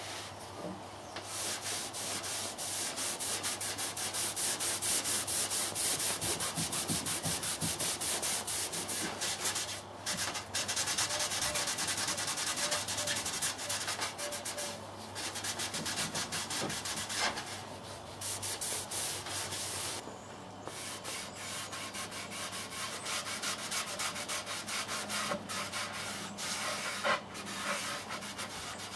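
Hand sanding of a pine board with a black sanding pad: quick back-and-forth rasping strokes over the wood, with two short breaks.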